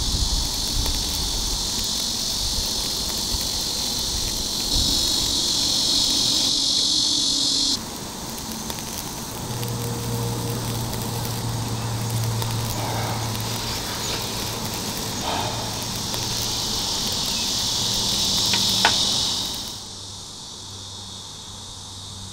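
Beef sizzling on a grate over oak charcoal: a steady high hiss that steps louder and softer a few times and drops away near the end. A short sharp click comes late on.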